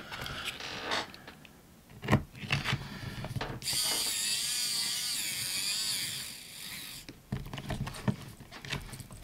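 Light plastic clicks and taps as a laptop's bottom cover is pressed into place, then a small electric screwdriver whirring for about three seconds before stopping abruptly.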